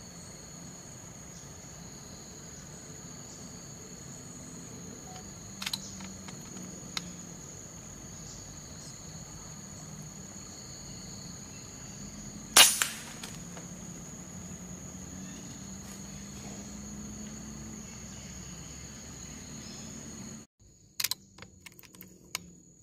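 Insects drone steadily in two high tones while one sharp, loud shot from a hunting air rifle cracks about halfway through. A few fainter clicks come before it, and near the end the insect drone cuts out, leaving a few light clicks.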